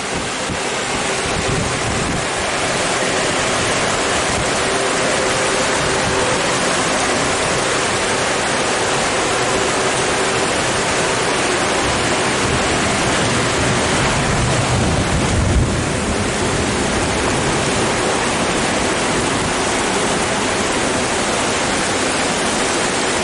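Heavy rain pouring down in a steady loud hiss, with wind on the microphone. A brief low bump about fifteen seconds in.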